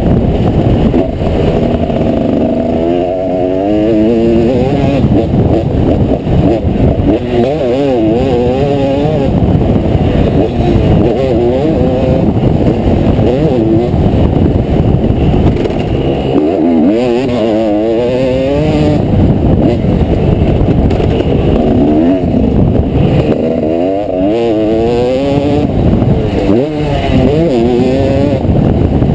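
Motocross bike engine ridden hard on a dirt track, heard from a camera mounted on the bike. The revs climb and drop again and again.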